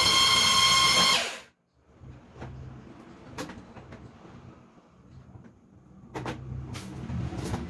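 Electric drill-type mixer running with a steady high whine, stirring the detergent mix, then switching off about a second in. Afterwards a few light knocks and clinks of handling.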